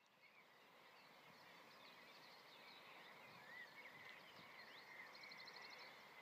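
Faint songbirds chirping and twittering over a quiet outdoor hush, fading in over the first second, with a quick high trill of rapid repeated notes near the end.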